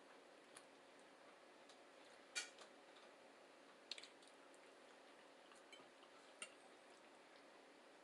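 Quiet eating sounds over faint room hiss: a few short, sharp clicks and taps, about four in all, the loudest about two and a half seconds in and a quick double click around four seconds.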